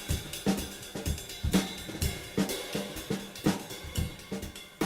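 Drum kit playing a steady beat: kick and snare hits about twice a second under ringing cymbals and hi-hat.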